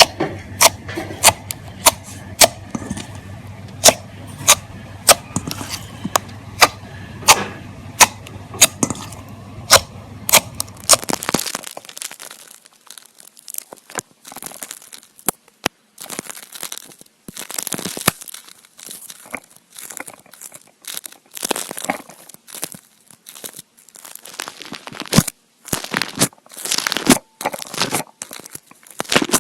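Hands playing with slime close to the microphone: sharp sticky clicks and pops about once or twice a second, then, about eleven seconds in, over a quieter background, crackly squishing and stretching sounds that come and go.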